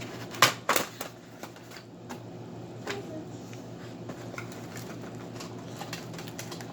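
Plastic toy packaging being handled and opened by hand: two sharp clicks about half a second in, then lighter clicks and rustling.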